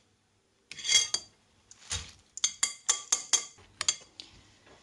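Metal spoon clinking and scraping against a steel mesh sieve and a glass bowl as soaked buckwheat groats are scooped into the bowl. A run of sharp, ringing clinks begins just under a second in and comes quicker in the second half.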